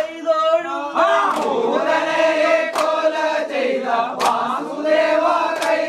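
A group of men singing together in a loud chorus, with a sharp clap about every second and a half.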